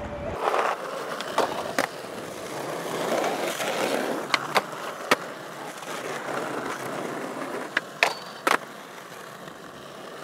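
Skateboard wheels rolling on asphalt with a steady rumble, broken by sharp clacks of the board against the ground. These are tail pops and landings: a few early, a cluster about four to five seconds in, and three more around eight seconds.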